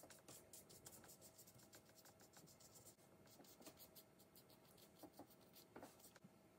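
Faint, quick strokes of a watercolour brush on paper, a soft dabbing and scratching, thinning out and stopping near the end.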